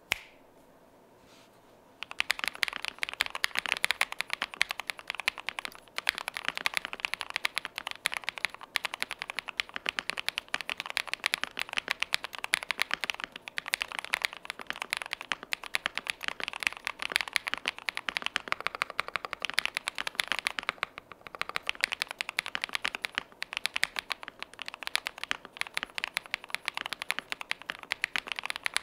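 A single finger snap, then from about two seconds in, fast continuous typing on an Akko ACR Pro mechanical keyboard with KTT Chalk linear switches lightly lubed with Tribosys 3203. The keystrokes give a muted, matte, chalky popping clack, with a brief pause around two-thirds of the way through.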